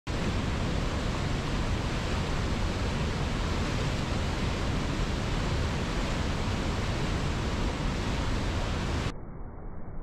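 Rushing whitewater of a mountain river cascading through a rocky gorge, a steady full roar of water. A little after nine seconds it cuts abruptly to a quieter, duller rush of water at the brink of Niagara Falls.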